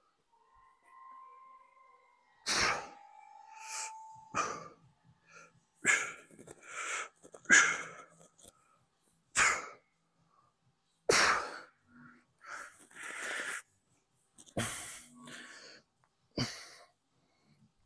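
A man's sharp, forceful breaths out through the mouth, about one every second or two, the effort breathing of a set of dumbbell hammer curls.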